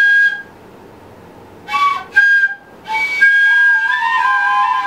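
Homemade flute-like wind instruments being played: a high held note cuts off right at the start, a couple of short notes follow about two seconds in, then from about three seconds two instruments play a halting tune together.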